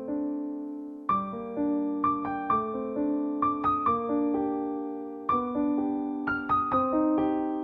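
Background music: a gentle solo piano melody, notes struck and left to ring.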